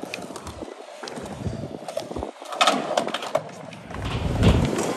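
Skateboard wheels rolling over concrete, with a few sharp clacks of the board around the middle and a louder rolling rumble near the end.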